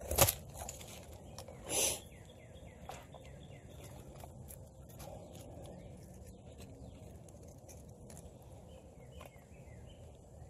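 A sharp knock, then a brief scrape, as a steel knife shaves curls off a stick to make a feather stick. After that comes light handling of twigs and bark, with a small bird giving two runs of short falling chirps in the background.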